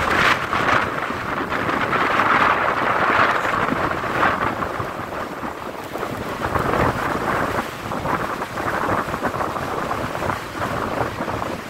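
Strong wind blowing hard across the microphone over breaking sea waves: a continuous rushing noise that swells and eases, with irregular gusty buffets.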